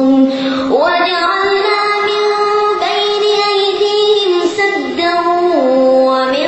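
A boy's voice reciting the Quran in a drawn-out melodic chant. It holds long notes, slides up to a higher note about a second in, and steps back down toward the end.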